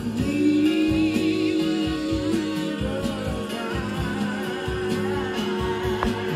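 A song with singing and instruments playing from a vinyl LP on a Technics SL-Q2 direct-drive turntable. Near the start the singer holds one long note for a couple of seconds.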